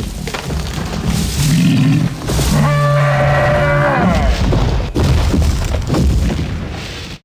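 Stegosaurus creature sound effect: deep rumbling bellows, with a long pitched call from about two and a half seconds in that bends down in pitch as it ends. A sharp knock comes about five seconds in, then more low rumbling that cuts off abruptly at the end.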